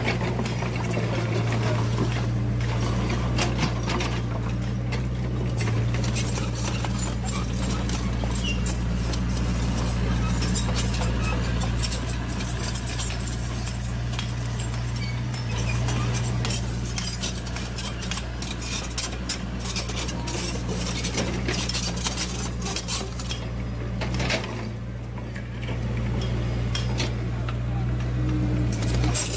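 Radio-controlled model excavator's electric motors and gearboxes running with a steady low hum as the arm works, with many small clicks and rattles throughout.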